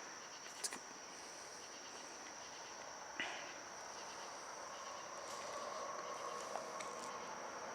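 Crickets trilling steadily and faintly, one high unbroken note, with a single faint tap a little after three seconds in.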